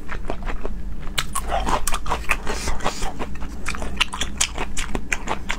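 Close-miked wet chewing and lip smacking of a person eating raw seafood sashimi: a rapid run of small sticky mouth clicks.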